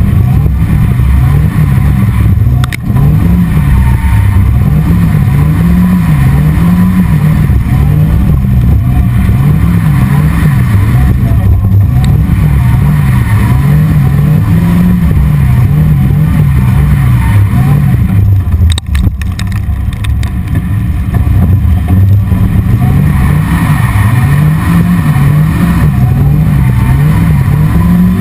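Open-top sports car's engine heard onboard during drifting, loud and close, its pitch rising and falling again and again as the throttle is blipped and held through the slides.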